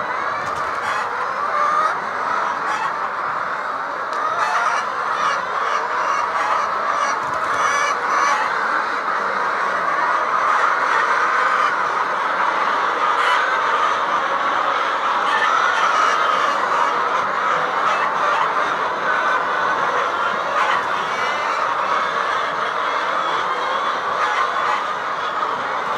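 A large flock of chickens in a poultry house, clucking and calling together in a continuous dense chatter.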